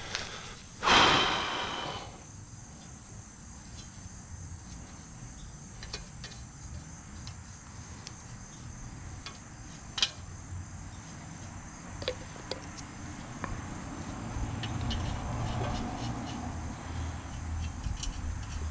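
Scattered clicks and knocks of parts and tools being handled while a mower's blower fan is reassembled, with one loud harsh rasping burst about a second in. A faint steady high-pitched drone runs underneath.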